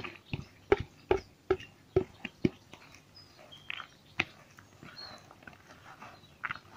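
Plastic bowl knocked about six times against the rim of a plastic tub to shake out chopped spinach, then a hand rustling through the chopped vegetables as they are mixed. Faint short high chirps sound now and then.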